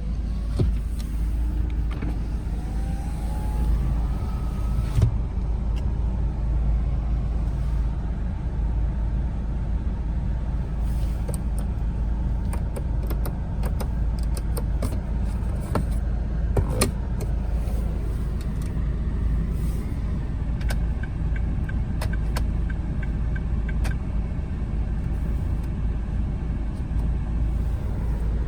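Strong wind buffeting the microphone as a steady low rumble, with scattered clicks and knocks.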